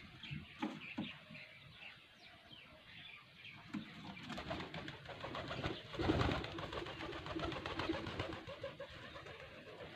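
A flock of pigeons cooing, with many short chirps from smaller birds over them and a brief louder rush about six seconds in.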